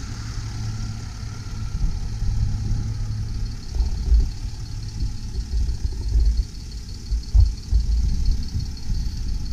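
Mercedes-Benz ML320 CDI's V6 turbo diesel idling steadily, with irregular low rumbles from about four seconds in.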